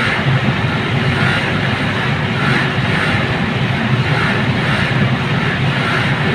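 Large ventilation fan blower running steadily, air rushing through a louvered grille: a loud, even whoosh with a low hum beneath it.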